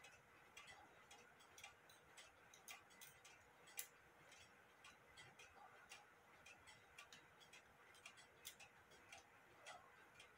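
Faint ticking and small metallic clicks from clockwork, several a second and not quite even, with one sharper click about four seconds in.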